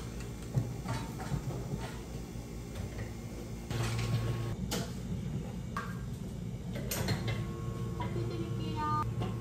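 Café bar work at an espresso machine: scattered clinks and knocks of cups and machine parts being handled, over the machine's steady low hum. A brief ringing tone comes near the end.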